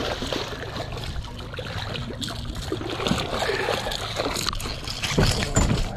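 Bluefish thrashing and splashing at the water's surface while being hand-lined up to the side of the boat.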